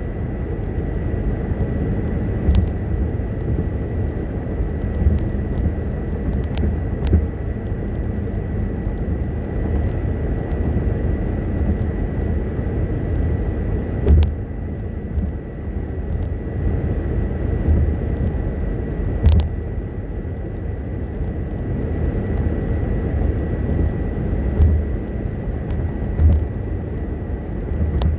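Road noise inside a car at highway speed: a steady low rumble of tyres and engine with a faint steady high whine, and a few light clicks scattered throughout.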